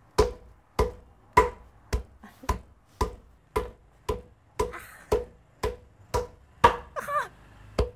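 Wooden mallet beating boiled tree bark in steady, evenly spaced strokes, about two a second, each a sharp knock with a short ring. The bark is being pounded to break its softened fibres apart for handmade washi paper.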